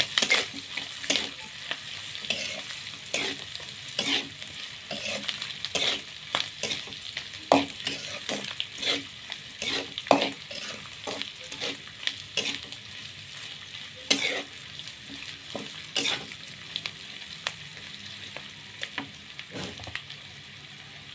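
Small anchovies, chilies and spices frying in oil in a wok with a steady sizzle, while a metal spatula scrapes and knocks against the pan in irregular strokes about once or twice a second; the stirring thins out near the end.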